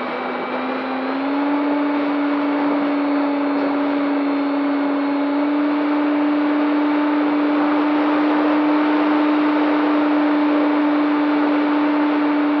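Skysurfer RC plane's electric motor and propeller running at steady cruise throttle, a loud, even drone with a rushing wind hiss, heard from the onboard camera. The pitch steps up slightly about a second in, then holds.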